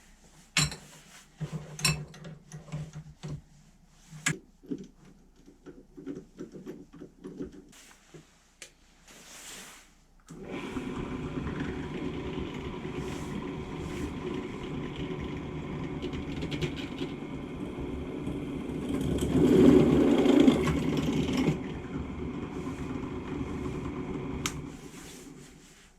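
A few scattered clicks and knocks, then about ten seconds in a refurbished pillar drill's electric motor starts and runs steadily with a whirring drive. It gets louder for about two seconds past the middle, then settles back and stops shortly before the end.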